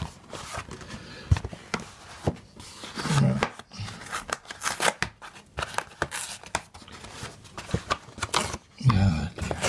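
Stiff brown board-backed paper envelope being handled and pulled open: irregular rustling, scraping and tearing of paper and card. A brief murmured voice comes about three seconds in and again near the end.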